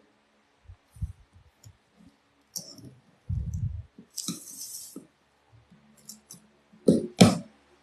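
Hands handling boxed products and packaging: scattered small clicks and rattles, a dull thud about three seconds in, a rustle of packaging around four to five seconds, and two loud knocks near the end.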